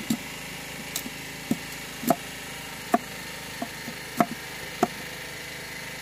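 Knife blade cutting and splitting sugarcane stalks held upright on a wooden plank: a series of about nine short, sharp cracks and knocks at uneven intervals.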